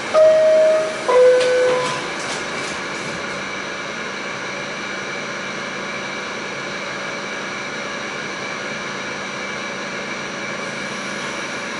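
NYC subway R46 car's two-note descending door chime, followed by the doors sliding shut with a few knocks; then the stopped car's steady hum and hiss of fans and equipment.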